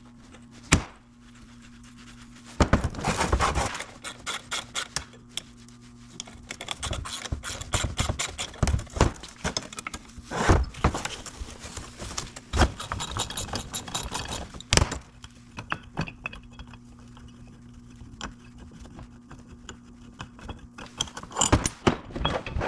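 Metal tools and parts clinking and knocking as they are handled, in irregular sharp knocks with a busier patch of clatter about three seconds in. A faint steady low hum sits underneath.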